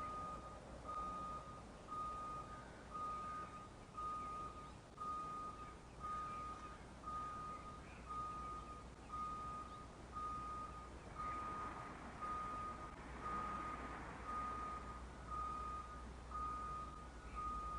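School bus reverse alarm beeping steadily, one high beep about once a second. A broader vehicle noise swells under the beeps for a few seconds past the middle.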